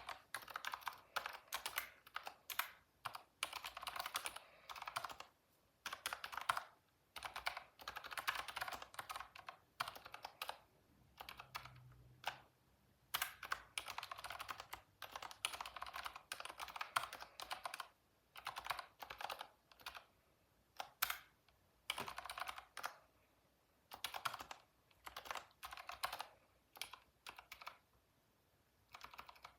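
Typing on a computer keyboard: runs of quick keystrokes broken by short pauses, with a longer pause near the end.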